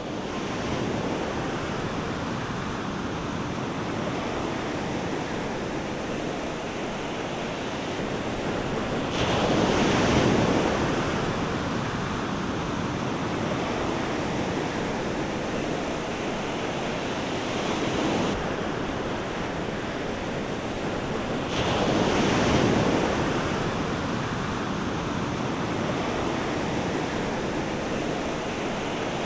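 Ocean waves breaking on a rocky shore: a steady wash of surf, with two louder surges about ten seconds in and again about twenty-two seconds in.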